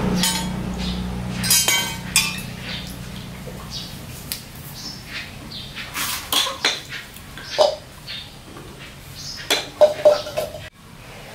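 Scattered knocks and clinks of kitchenware being handled: an aluminium pot, a knife and a plastic blender jar as mango pieces are dropped into the jar.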